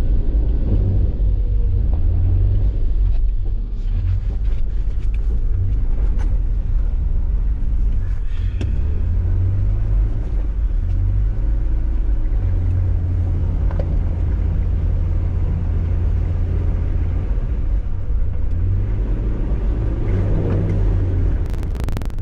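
Off-road 4x4's engine running at low speed, a steady low rumble, picked up by a camera mounted on the hood.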